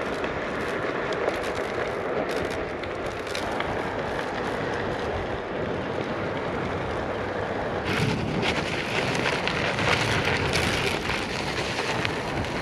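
Onewheel XR rolling over asphalt: a steady rush of tyre and road noise mixed with wind on the microphone. About 8 s in the sound becomes louder and brighter, with many small ticks from grit under the tyre on rough pavement.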